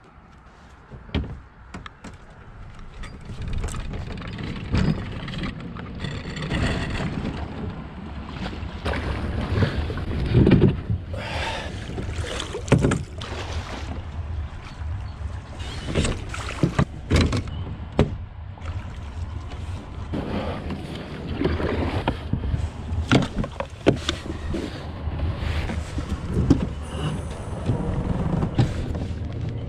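A fishing kayak and its gear knocking and clunking as it is launched down a boat ramp and moved out onto the water, over a steady low rumble. The knocks come irregularly, several every few seconds.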